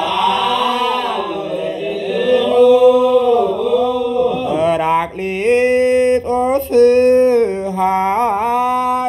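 A single male voice chanting Ethiopian Orthodox zema in Ge'ez, with long held notes that waver and bend in melismatic turns.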